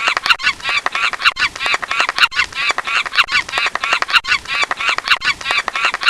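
A rapid, perfectly regular run of short, high-pitched honking calls, about three a second. The sound is clipped of its low end, as from an edited-in sound effect.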